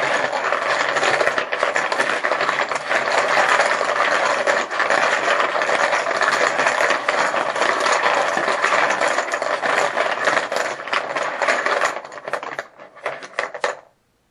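Poker chips clattering together as they are mixed for a random draw, a dense continuous rattle of many small clicks. Near the end it thins to a few separate clicks and then stops.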